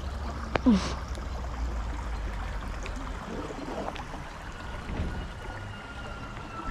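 Creek water running under a steady low rumble of wind on the microphone. About half a second in, a sharp knock and a short grunt falling in pitch.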